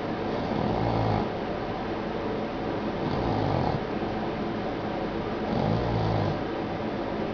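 Boston terrier snoring in deep sleep: three rough snores about two and a half seconds apart, over a steady hiss.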